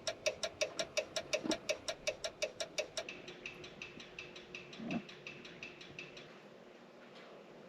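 2014 Dodge Grand Caravan turn-signal indicator ticking very fast, about seven ticks a second: hyperflash, the sign of a burned-out front turn signal bulb. About three seconds in the ticking turns quieter, and it fades out a few seconds later. There is a dull thump near the five-second mark.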